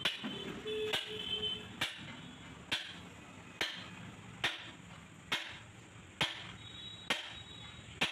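Hammer blows on metal at a steady pace, a little faster than one a second, each with a short metallic ring.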